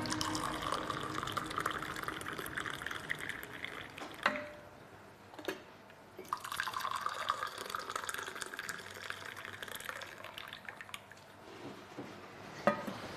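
Hot tea pouring from a stainless steel vacuum flask into glass tea cups, in two long pours with a few light knocks between and after them.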